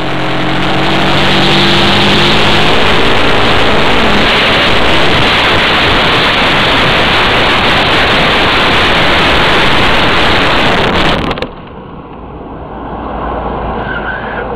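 Loud wind and road rush on a motorcycle-mounted camera at speed, with the engine's note rising during the first few seconds. The loud rush cuts off abruptly about eleven seconds in as the bike goes down, leaving a quieter low rumble.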